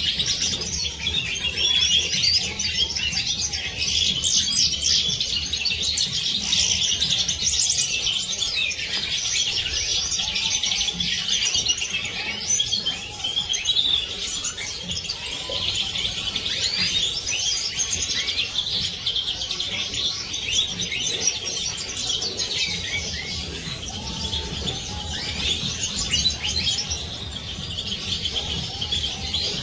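Several Siberian major goldfinches singing and twittering at once: a dense, unbroken chorus of quick high chirps and trills.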